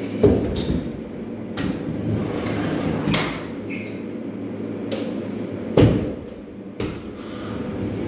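Scattered sharp knocks and clatter of drywall-finishing tools being handled, over a steady low hum; the loudest knock comes about six seconds in.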